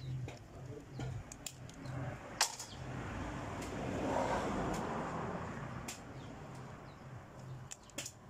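Sharp clicks and snaps of a live mud crab's shell and legs being pulled apart by hand over a steel basin. A rushing noise swells and fades in the middle, the loudest sound here, with a low pulsing hum underneath.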